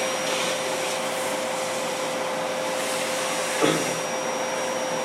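Household vacuum cleaner running steadily, a continuous rush of air with a steady whine. A brief falling vocal sound comes a little after the middle.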